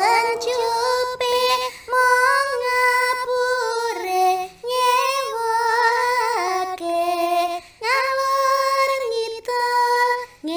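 A high solo voice singing a slow song for the dance, holding long notes that slide between pitches, in short phrases with brief breaks.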